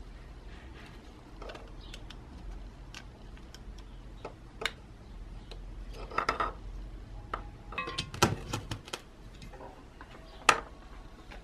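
Small screwdriver and black plastic plug connector being handled on a wooden bench: scattered light clicks and taps as screws are driven in and the housing is fitted together, with clusters of clicks in the middle and a sharper click near the end.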